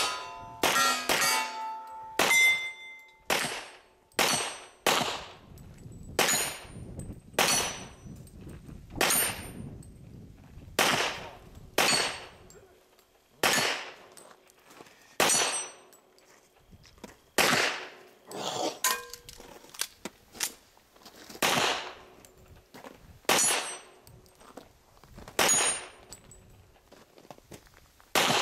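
Handgun shots fired at steel targets, one every second or two, with the steel plates ringing after hits.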